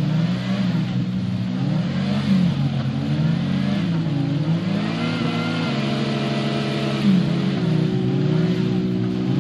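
Off-road 4x4's engine revving up and falling back again and again, roughly every second or two, as it churns through deep mud.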